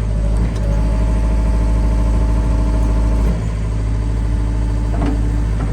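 John Deere 50G mini excavator's diesel engine running at raised throttle. A steady hydraulic whine lies over it from about half a second in until about three seconds in, as a hydraulic function is worked. A couple of short knocks come near the end.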